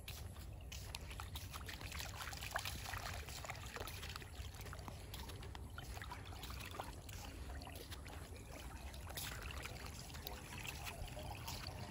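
Water trickling through a swimming pool's overflow gutter, with small splashes and patters as an Akita puppy steps through it, over a low steady rumble.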